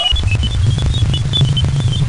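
Sonified radio or plasma-wave emissions from the Jupiter system: a dense, crackling low rumble full of fine clicks, with scattered short, high chirping tones above it.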